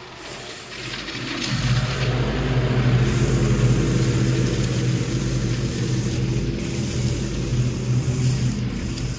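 Riding lawn mower engine running steadily, growing louder about a second and a half in and staying strong.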